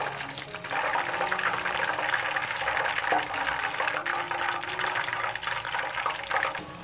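Hot oil in a deep-frying wok sizzling with a dense, steady crackle as battered chicken pieces fry.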